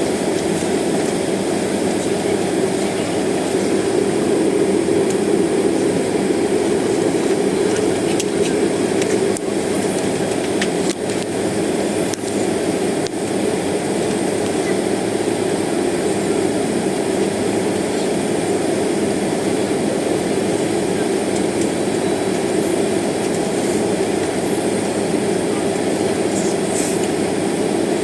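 Steady cabin noise inside a jet airliner taxiing: a constant rumble of the engines at taxi power and the cabin air conditioning, with a few faint clicks.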